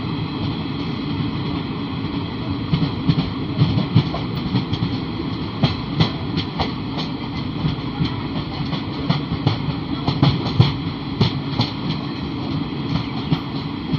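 Passenger train wheels running on the rails, a steady rumble with irregular sharp clacks over rail joints, heard through an open coach window while a second train's coaches run alongside on the next track.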